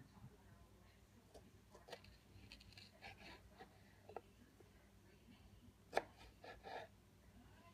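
Knife slicing tomato on a cutting board: a few faint knocks of the blade meeting the board, the sharpest about six seconds in.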